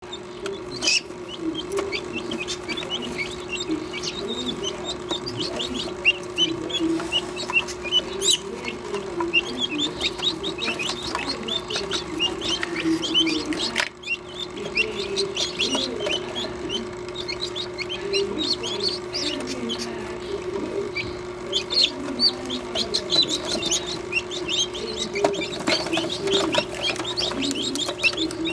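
Newly hatched lavender guinea keets peeping continually, many short high calls overlapping, over a steady hum.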